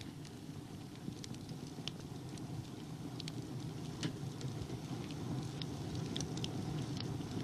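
Steady low rumbling noise with scattered small crackles and clicks, a few a second: surface noise of an old archive film soundtrack.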